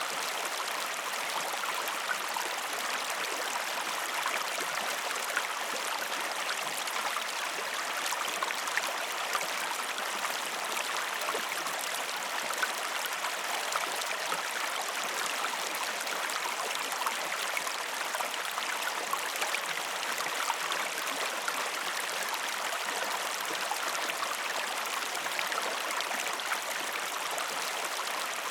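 River water flowing steadily: an even rush of moving water with small splashes and trickles scattered through it.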